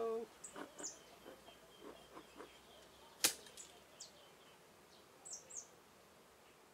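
Light knocks and scrapes as the beekeeper handles his smoker and knife at an open top-bar hive, with one sharp click about three seconds in. Short high bird chirps come through a few times.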